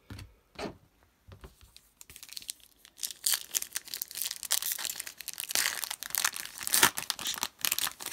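A few light taps, then from about two seconds in a trading-card pack's plastic wrapper is torn open and crinkled by hand.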